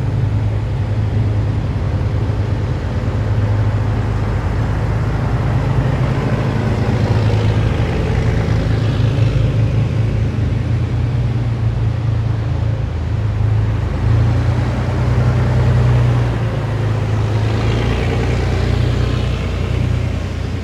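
Heavy military vehicles driving past in a column, their engines a loud, steady low drone, with two louder pass-bys, about eight and eighteen seconds in.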